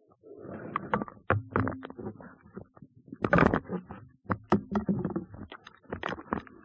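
Irregular knocks, clicks and short scrapes underwater as a speared sea bass is handled on a speargun's steel shaft and line, picked up by a camera mounted on the gun. The loudest cluster comes about three and a half seconds in.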